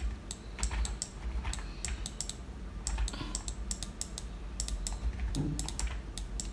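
Computer keyboard keys and mouse buttons clicking irregularly, a few clicks a second, over a low steady hum.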